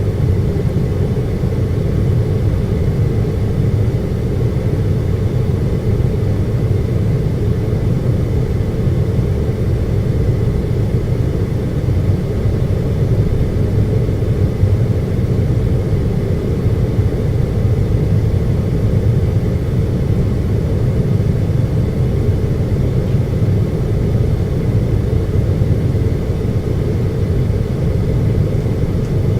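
Air conditioner running with a steady low hum, its sound held even throughout, with a faint steady whine above it.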